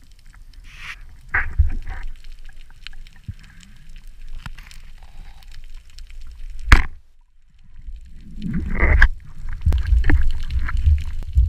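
Underwater noise picked up through a camera housing during a freedive: water rushing and bubbling in uneven bursts, with a larger bubbling surge about three-quarters of the way in. A single sharp click sounds about two-thirds of the way through.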